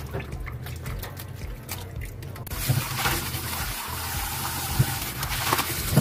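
Light splashing as blanched miyeok (wakame seaweed) is moved about in cold water in a steel bowl, then a kitchen tap starts running steadily onto it about halfway through, for rinsing right after blanching.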